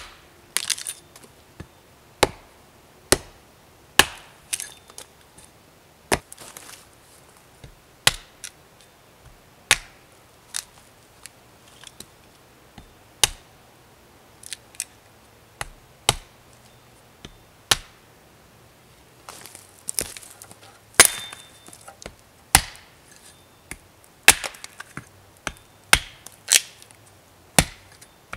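A hatchet chopping into an upright wooden post: a series of sharp blows, roughly one a second and irregularly spaced, some followed by smaller cracks of wood.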